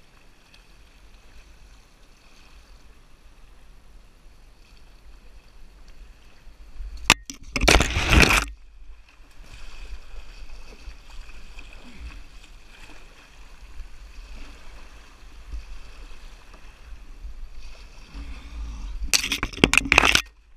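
Canoe running a fast, narrow river channel: steady rush and slosh of water along the hull. Two loud rough bursts of about a second each break in, one about seven seconds in, just after a sharp click, and one near the end.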